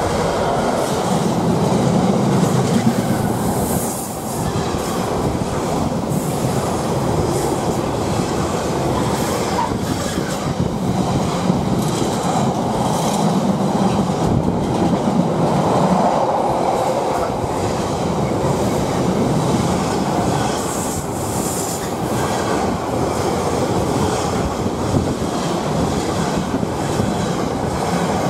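Freightliner Class 66 diesel locomotive passing close at speed, followed by a long train of container wagons rattling by with their wheels clattering over the rail joints.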